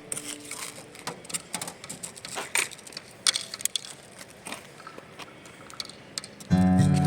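Irregular faint clicks and crackles, scattered and uneven. About six and a half seconds in, acoustic guitar music starts.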